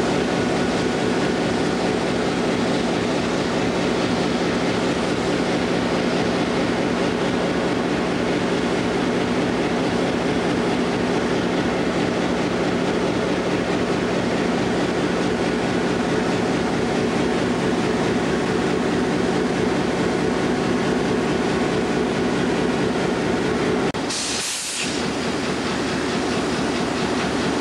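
EMD F-unit diesel locomotives idling close by: a steady, even engine hum. About 24 s in there is a sudden short hiss lasting about a second, and after it the idling goes on with a changed tone.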